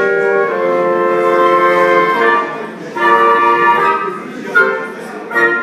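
Music: a melody of long held notes, each changing pitch after a second or so, ending in a couple of short notes.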